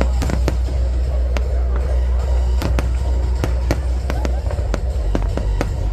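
Fireworks display: many sharp bangs and crackles in quick succession, over music with a heavy steady bass playing along with the show.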